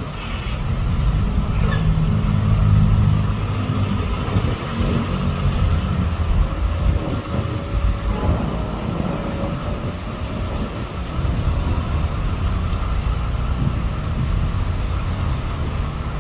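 Steady low rumble of motor traffic, with a low engine hum over the first few seconds.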